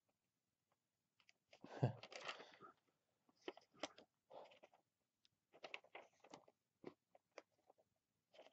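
Paper rustling and crinkling as glossy comic book pages are turned and handled. There is one longer, louder rustle about two seconds in, then short scattered rustles and light clicks.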